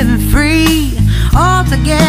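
Background music: a song with a singer's voice over a steady instrumental accompaniment.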